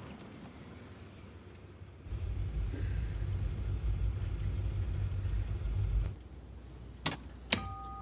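A low, steady rumble like a passing vehicle for about four seconds, then two sharp clicks and a short touch-tone telephone keypad beep near the end as a number is dialled.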